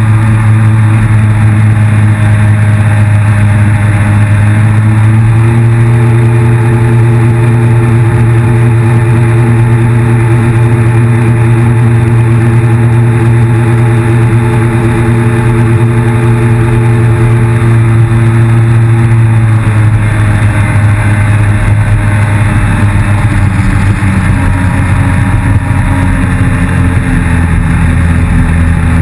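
Yamaha FX160 HO jet ski's four-stroke engine running hard at speed on open water. Its pitch steps up about five seconds in, holds steady, then eases off a little near twenty seconds in. Water and wind hiss sit under it.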